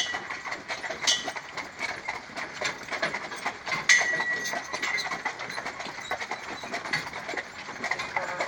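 Hooves of a carriage pair, a Haflinger and an Appaloosa, clip-clopping in an uneven run of clicks as they pull the carriage. A few short, high ringing sounds stand out, the loudest about four seconds in.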